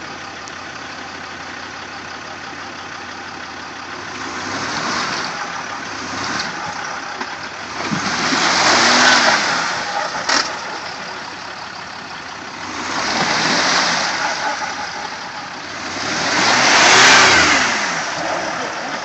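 Land Rover Discovery 4's engine idling, then revved hard four times, the pitch rising and falling with each surge, as the stuck SUV tries to drive out of the mud bog. Each rev brings a loud rushing hiss of wheels spinning in the mud, the second and last surges loudest.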